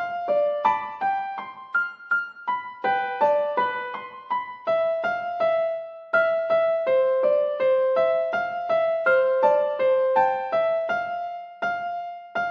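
Background music: a keyboard, electric-piano-like, playing a light melody of separate notes that quickly fade.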